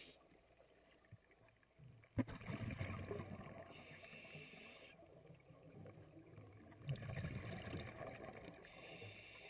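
Scuba diver breathing underwater through a regulator: a burst of exhaled bubbles about two seconds in and again about seven seconds in, each followed by the hiss of the next breath drawn through the regulator.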